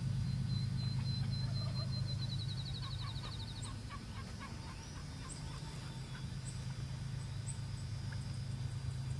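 Wild turkey gobbling faintly in the distance over a loud, steady low rumble. A high note breaks into a fast trill in the first few seconds.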